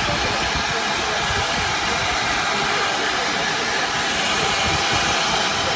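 LMS Black 5 (Stanier Class 5 4-6-0) steam locomotive moving slowly, with a steady hiss of escaping steam from around its cylinders.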